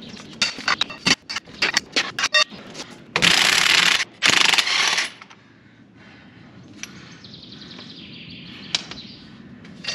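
Cordless impact wrench hammering at a very tight tine-holder bolt on a rotary power harrow: a string of short rattling bursts, then two longer bursts about three and four seconds in, after which it stops and only a few knocks follow.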